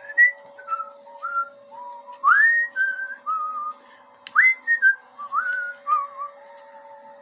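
A person whistling a tune: a string of short notes, several swooping up into held notes, over a faint steady hum.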